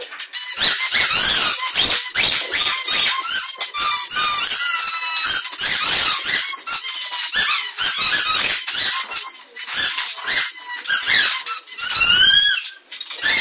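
Dogs chewing squeaky toys: a rapid, unbroken run of high-pitched squeaks that slide up and down in pitch.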